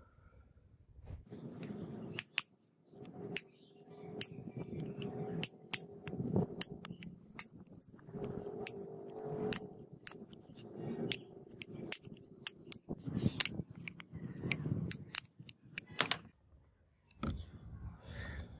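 A hammer tapping repeatedly on a rusty angle grinder's gear head, a run of sharp, irregular metal knocks with rattling and scraping between them, as the stuck armature bearing is driven to free the gear housing from the motor body.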